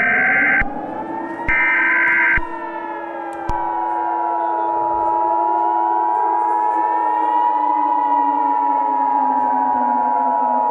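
Emergency Alert System tones: two short buzzing SAME header data bursts in the first two and a half seconds, then from about three and a half seconds in the steady two-tone EAS attention signal. Under both, a civil defense siren wails slowly up and down.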